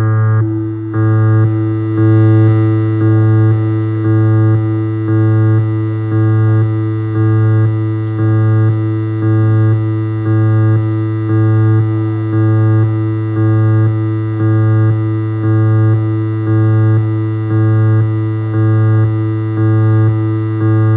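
Electronic music: a synthesizer loop with a steady low tone under a chord that pulses evenly, a little more than once a second.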